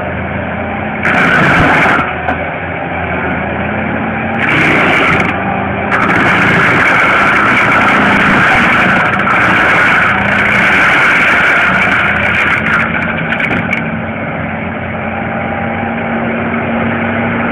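Cat 287 skid steer's diesel engine running steadily under load with its mulching head spinning. A harsher, louder hiss comes and goes in stretches (briefly about a second in, again around four and a half seconds, and for most of the time from six to fourteen seconds) as the mulching head grinds into brush.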